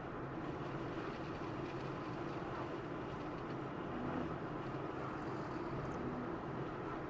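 Steady road noise of a car driving, tyres and engine running at an even pace.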